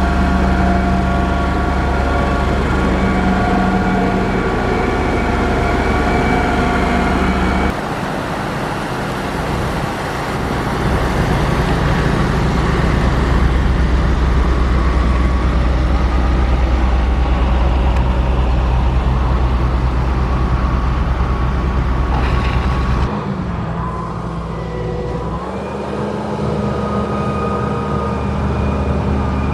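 Heavy road-construction machinery running steadily with a loud, deep engine sound. The engine sound shifts abruptly about 8 seconds in and again about 23 seconds in, with a brief dip and recovery in pitch just after the second change.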